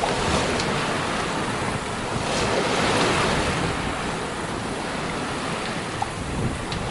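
Water rushing and splashing along the hull of an Island Packet 38 sailboat moving fast through rough, rolling seas, with wind buffeting the microphone; the rush swells about three seconds in.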